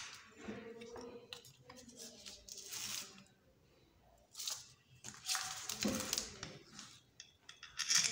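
Irregular rustling, scraping and light clinking of a mixer's universal-motor parts being handled: the aluminium end housing, field-coil stator and wire leads moved about over newspaper.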